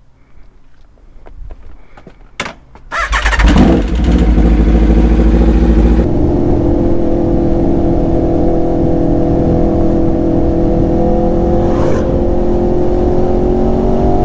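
Aprilia RSV4 RF's V4 engine being started on a freshly fitted battery: a few light clicks, then the starter cranks and the engine catches about three seconds in, revs up briefly, and settles into a steady idle.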